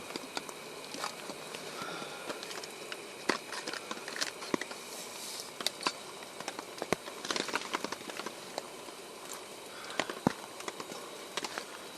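Cold rain pattering on a tarp: a steady hiss with irregular sharp drops striking at random throughout.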